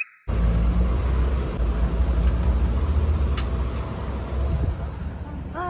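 Road traffic rumbling steadily, with a couple of faint clicks.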